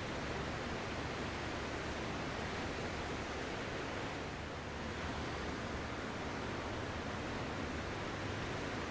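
Ocean surf washing steadily, with a slight lull about four and a half seconds in.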